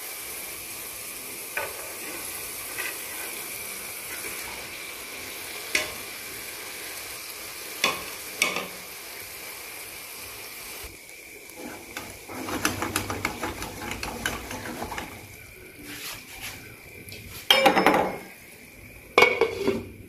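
Spicy fish-curry masala sizzling in oil in a frying pan, with a steady hiss and a few sharp pops. About halfway through, fish pieces go into the pan and a spatula stirs with a rapid clatter. Near the end come two loud clanks as a glass lid is set on the pan.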